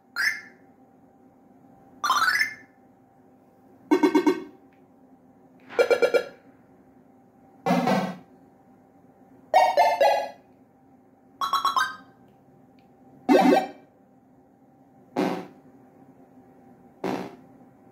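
A string of short, varied electronic tones, one about every two seconds, each lasting about half a second. Some glide upward in pitch and others warble rapidly, over a faint steady hum.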